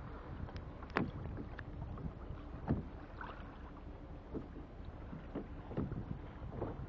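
Choppy sea water slapping and splashing irregularly against the hull of a plastic sit-on-top kayak, over a steady low rumble.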